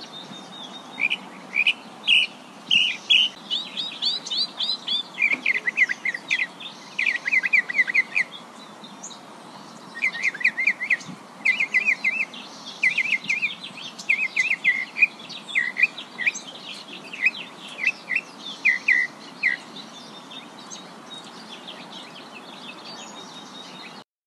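Songbirds chirping and trilling in short, rapid phrases repeated every second or so, over a steady background hiss. The birdsong dies away near the end.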